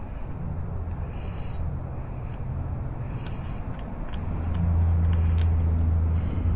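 A vehicle engine running nearby, a steady low hum that grows louder about four and a half seconds in.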